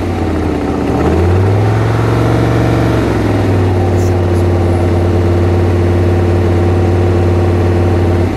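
1970 Chevelle SS's 454 cubic-inch LS6 big-block V8 running through its dual exhaust. It is revved up about a second in, held for about two seconds, then drops back to a steady idle.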